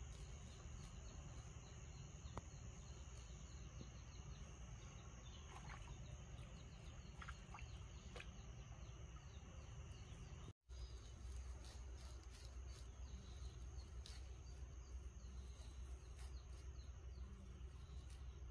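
Faint outdoor ambience: insects trilling steadily at a high pitch over a low rumble, with a few short bird chirps partway through. The sound drops out for an instant just past halfway.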